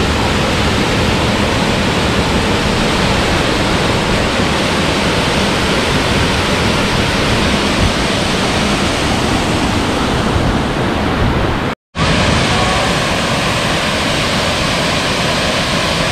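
A waterfall rushing steadily, heard close up as a dense, even roar of water pouring over rocks. The sound cuts out for an instant about twelve seconds in.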